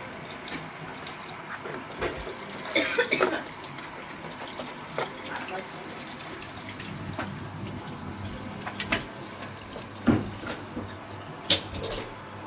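Hand work fitting a replacement spark generator into a combi boiler: scattered light clicks and knocks over a steady hiss.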